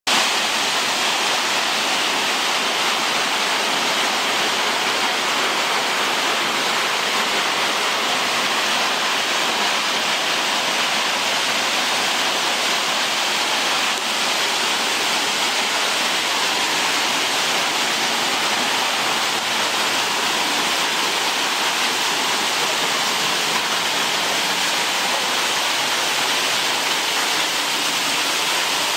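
Spouting Rock waterfall, the spring-fed fall that gushes out of a hole in the cliff above Hanging Lake, pouring in a steady, even rush of water.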